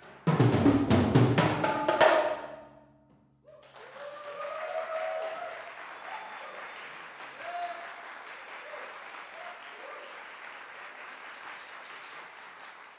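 A last loud flurry of strokes on a multi-percussion setup of small tuned drums, ringing out over about a second, closes the piece. After a brief gap the audience applauds steadily, with a few shouts.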